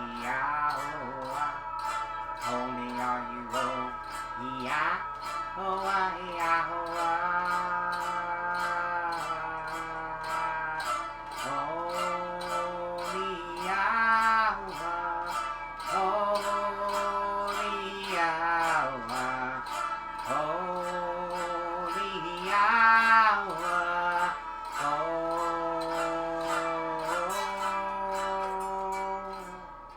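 Music: a sustained, gliding melody, sung or played, over a steady beat of about two strokes a second, with a plucked-string sound.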